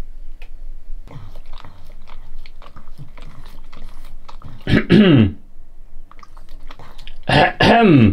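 Pug licking and smacking at the side of its fabric dog bed: a run of small wet clicks and smacks. Two short, louder vocal sounds with falling pitch break in about five and seven seconds in.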